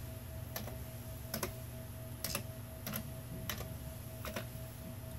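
Slow one-finger typing on a Commodore 64 keyboard: about six separate key clicks, evenly spaced, over a steady low hum.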